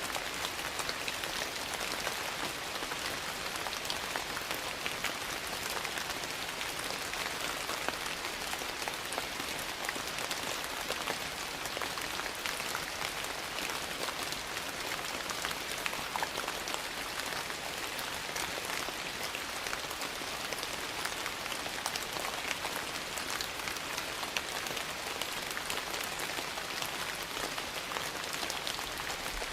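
Steady rain, an even hiss scattered with many small ticks and pops.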